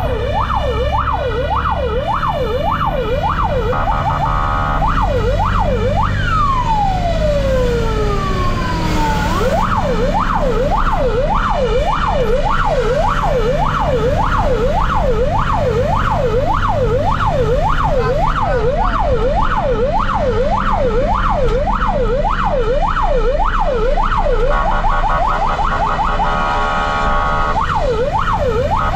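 Fire engine's electronic siren on a fast rising-and-falling yelp, about two cycles a second, switching briefly to a rapid warble about four seconds in and again near the end, with a long falling tone sweeping down between. A steady engine rumble runs underneath.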